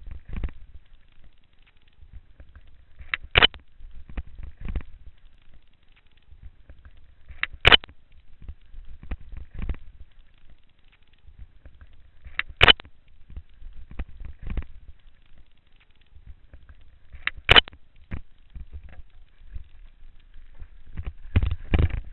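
Mountain bike rattling and clattering down a rough forest trail, with a low rumble of wind and jolts on the microphone. Four sharp knocks come about five seconds apart, and a burst of heavier clattering follows near the end.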